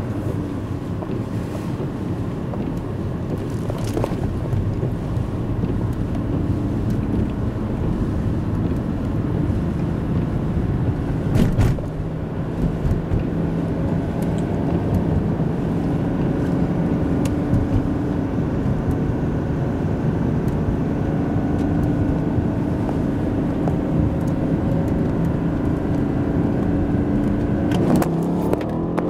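Car engine and tyre noise heard from inside a car running at speed beside another car: a steady engine drone under road and wind noise, with a sharp knock about eleven seconds in. Near the end the engine note starts to change pitch.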